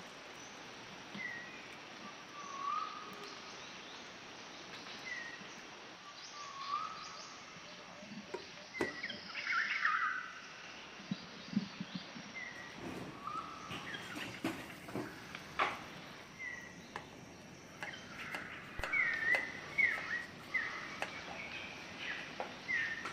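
Birds chirping at intervals of a second or two over a steady background hiss, with a few light clicks and knocks partway through and near the end.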